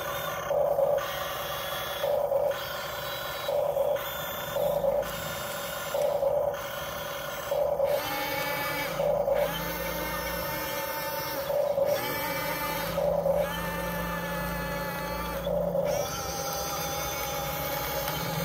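Huina 1:12-scale RC excavator working its boom and bucket: small electric gear motors whining, with a louder surge repeating about every second and a half.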